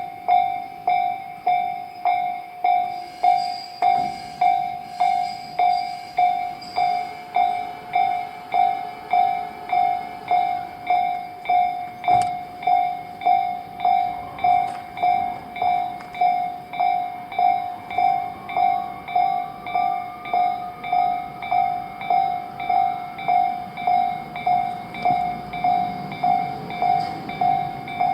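Japanese level-crossing warning bell ringing in an even, unbroken rhythm of about one and a half strikes a second: the crossing is closed for passing trains. A faint rising whine is heard partway through, and a low rumble builds near the end.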